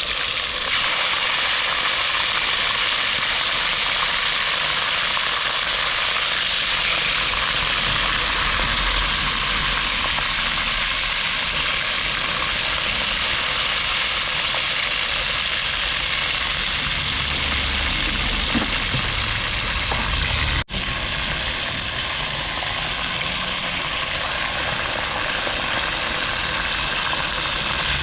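Fish frying in hot oil in a pot: a steady, loud sizzle, with a low rumble underneath. The sound cuts out for an instant about two-thirds of the way in and carries on slightly changed.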